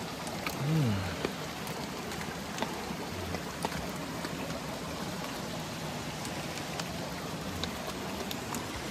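Steady heavy rain falling, a continuous hiss with scattered single drops ticking, and a brief low sound about a second in.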